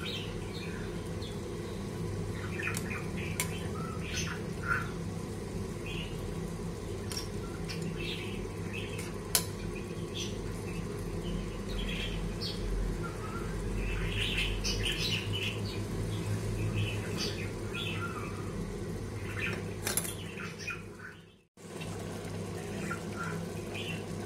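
A perforated steel spatula stirs biryani in a pot, clinking sharply against the metal twice, over a steady low hum. Short high chirps are scattered throughout. The sound cuts out briefly near the end.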